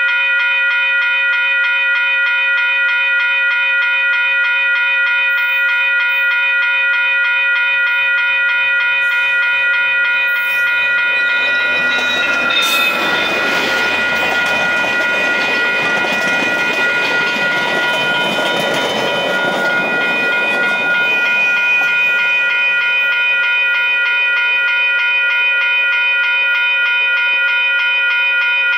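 A level-crossing warning bell rings steadily throughout. A VIA Rail passenger train led by diesel locomotive 6429 passes about twelve seconds in: the engine rumbles and the wheels clatter over the rails for about eight seconds, then fade.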